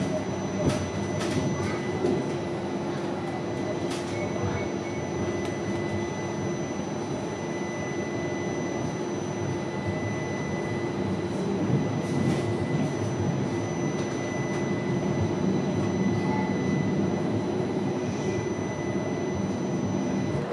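Interior of a CAF Urbos 3 tram's driver's cab while it runs along street track: a steady rumble of the wheels on the rails with a constant high whine over it. Occasional clicks and knocks come through, mostly in the first few seconds.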